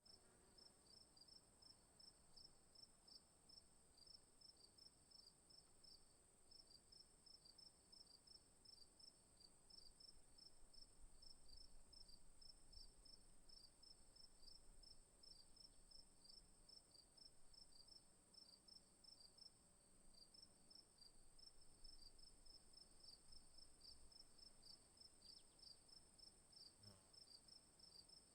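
Faint crickets chirping: a steady high trill with a rapid, even run of chirps, several a second, beneath it.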